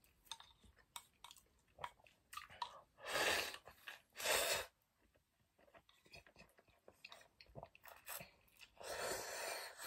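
Close-up mouth sounds of a person eating Jjapagetti noodles from a metal bowl: chewing with many small clicks, two loud sips or slurps from the raised bowl about three and four seconds in, and a longer slurp of noodles near the end.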